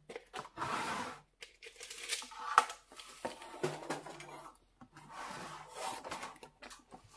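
Wooden boards being handled and slid against one another, giving a few separate scraping rubs about a second long each, with small knocks between them.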